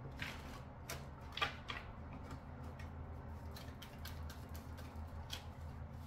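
Light, irregular clicks and snaps of a deck of tarot or oracle cards being handled and shuffled, over a low steady hum.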